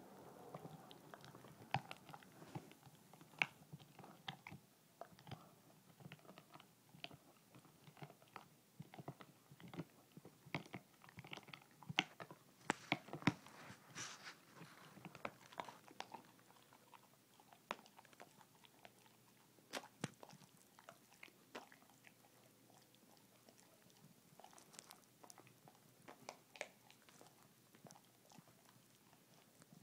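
Basset hound gnawing and crunching on a chew bone: a run of irregular short crunches and clicks, thickest in the middle and thinning out toward the end.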